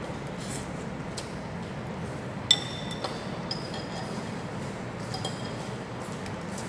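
Chopsticks and a ceramic spoon clinking against a ceramic noodle bowl while eating. There is one sharp ringing clink about two and a half seconds in and a few lighter clinks after it, over steady room noise.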